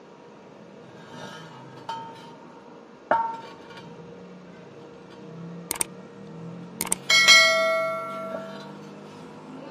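A few sharp metallic clinks and clicks, then a bell-like ring a little after seven seconds that dies away over about a second.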